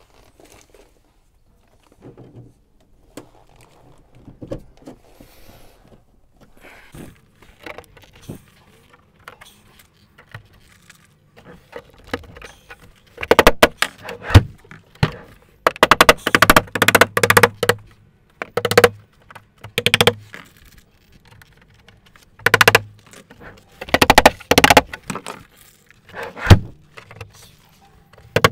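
Plastic push-in poppers being tapped home through a hard plastic door-store liner into a VW T5/T6 sliding door: quiet handling clicks at first, then several bursts of rapid, sharp taps in the second half.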